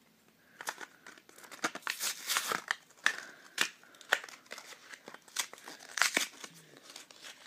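A small packet being crinkled and torn open by hand: a run of irregular crackles and short rips.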